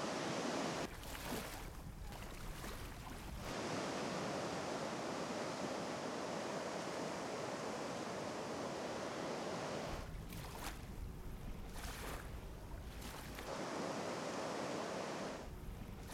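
Waves washing and breaking over a shallow shore, a steady rushing of water. A low wind rumble on the microphone drops in and out abruptly several times.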